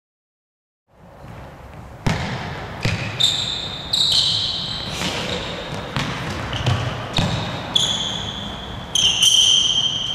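Several players' court shoes squeaking sharply and feet thudding on a sports hall floor as they run, stop and turn. The sound starts after about a second of silence, and the squeaks come thick and fast from about two seconds in.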